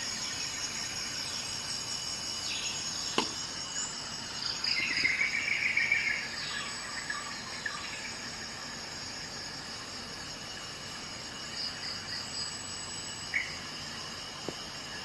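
Steady, high-pitched insect chirring, with two sharp clicks, one about three seconds in and one near the end.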